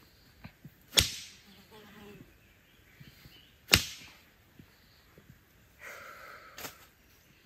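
Two sharp cracks of wood, about three seconds apart, as sticks are struck or snapped while building a stick trap. Near the end there is a brief rustle with a small click.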